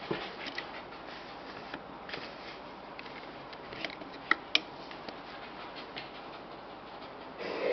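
Faint clicks and rustling from small white spitz-type dogs shifting about on a bed, over a steady hiss, with two sharp clicks a little past halfway. A dog starts panting just before the end.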